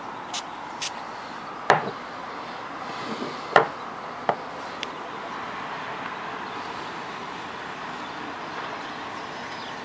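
Glass perfume bottle handled on a tabletop: a few light clicks, then three sharper knocks within about three seconds, the loudest about three and a half seconds in. A steady hiss runs underneath.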